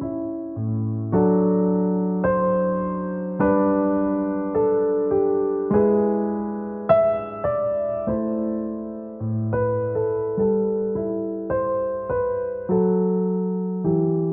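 Slow, gentle piano music: soft chords and single notes struck about once a second, each ringing and fading before the next.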